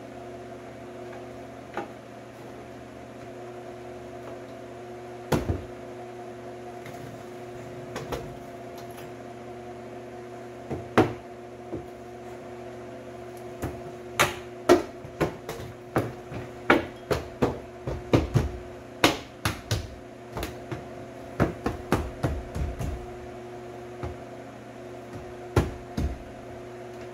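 Car door trim panel being fitted onto the door: a run of knocks, thumps and taps, a few at first and then many in quick succession from about halfway, as the panel is pushed and knocked into place, over a steady hum.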